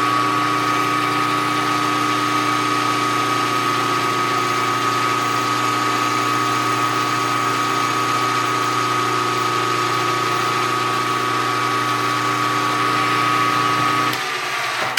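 Milling machine spindle running with a boring head, boring a bearing seat: a steady hum with a high whine. It shuts off near the end.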